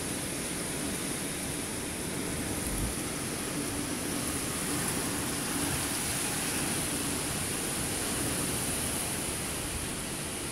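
Heavy thunderstorm downpour: a cloudburst of rain pouring steadily as a continuous hiss.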